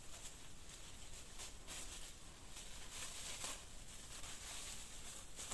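Faint rustling and scraping of brush and vines being handled and climbed through, with many short soft crackles over a faint high hiss.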